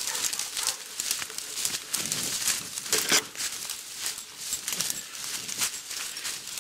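Feet running through dry leaf litter and brush: irregular crunching and crackling of leaves and twigs, loudest about three seconds in.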